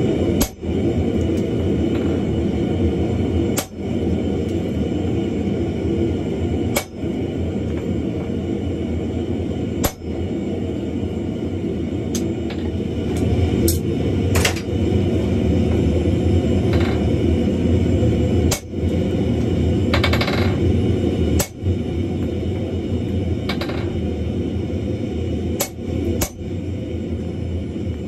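Hammer blows on red-hot wrought iron at the anvil: single sharp strikes every few seconds over a steady low rumble.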